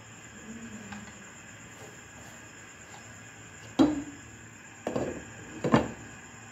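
Three sharp clinks about a second apart: a glass lid knocking against the rim of a metal cooking pot as it is set on.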